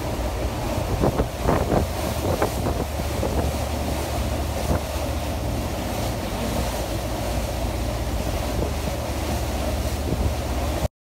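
Wind buffeting the microphone over the rush of water and the steady low drone of a party boat's engine under way, with a few louder buffets between about one and two and a half seconds in. The sound cuts off abruptly just before the end.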